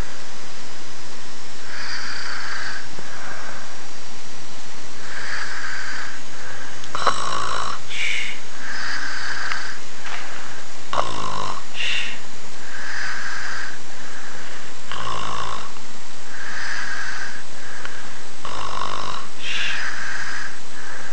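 A sleeping person snoring in a steady rhythm, one rough, buzzing snore about every four seconds with a breathy sound between snores.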